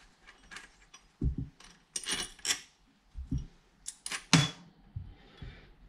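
Small metal parts of a kids' bike coaster-brake hub clicking and clinking as the hub is taken apart by hand, with a few heavier knocks, the loudest a little over four seconds in.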